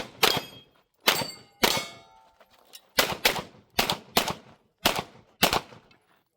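Pistol shots fired during a USPSA stage, about nine, mostly in quick pairs, with steel targets ringing after some of the hits.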